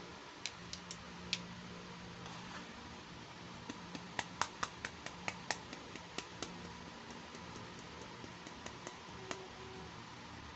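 Light, sharp clicks and taps of small plastic toy pieces being handled: a few near the start, a quick run of about a dozen around the middle, then scattered lighter ones, over a faint steady hiss.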